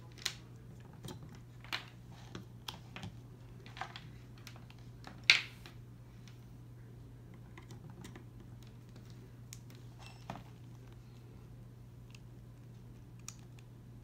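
Small plastic clicks and rattles of micro USB cable plugs being pulled out and pushed into their sockets and the cable being handled, with one sharp click about five seconds in. A steady low hum underneath.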